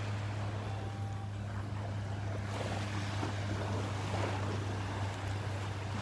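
Steady beach ambience: a constant low hum under an even wash of surf and wind.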